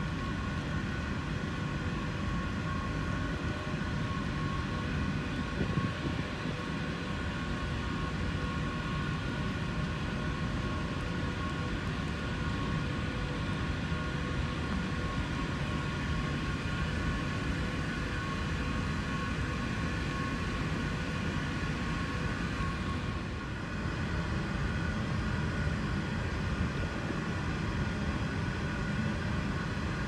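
Steady drone of oil-field processing plant machinery: a constant low rumble with several steady whining tones over it. It dips briefly a little past two-thirds of the way through, then picks back up.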